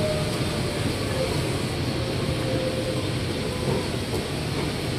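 Bangkok MRT Yellow Line rubber-tyred monorail train heard from inside its front cabin: a steady running noise of the car on its guideway, with a faint whine that sinks slowly in pitch as the train slows toward a station.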